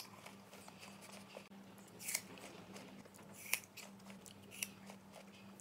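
A person chewing a bite of raw apple, with a few faint crunches.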